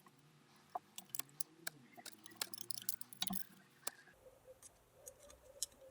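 Scattered light clicks and taps, irregular and faint, as small tools and metal parts of a diesel injection pump are handled.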